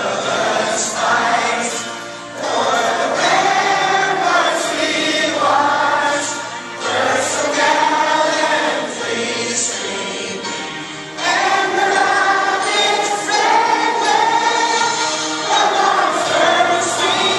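Choir singing a song in sustained phrases, with brief breaths between the lines.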